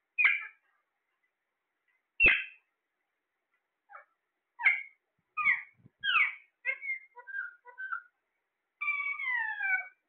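Alexandrine parakeets calling: short, separate calls at first, coming more often after a few seconds, then a quick run of short notes and one longer call near the end that falls in pitch.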